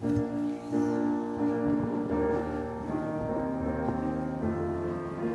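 A keyboard playing slow, held chords, starting suddenly and moving to a new chord every second or so.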